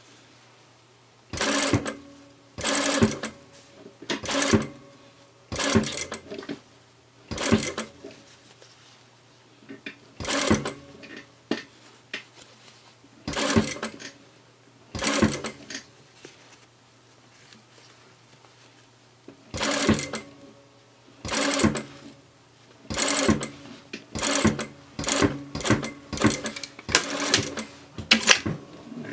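Sewing machine stitching in short bursts, about twenty of them, stopping and starting as small fabric pieces are guided and turned under the presser foot. The bursts come closer together near the end.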